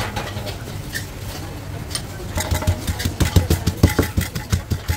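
Wooden pestle pounding shredded green papaya in a clay mortar for som tam. The pounding starts about two seconds in as a quick run of dull thumps, about four a second, with sharper clicks.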